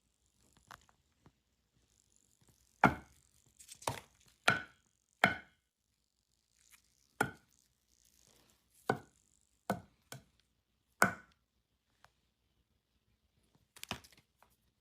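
Fried chicken giving off short, sharp pops and cracks one at a time, at uneven intervals, about a dozen in all, with quiet between them.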